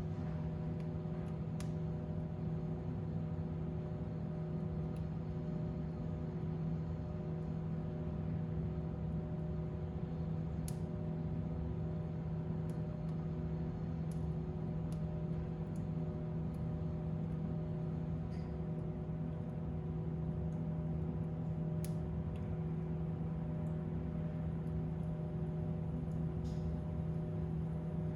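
Fire burning in a fireplace: a steady low hum with a scattering of sharp, isolated crackles.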